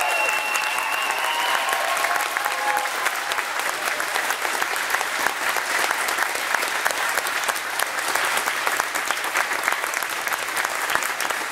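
A large audience applauding, a steady clatter of many hands clapping.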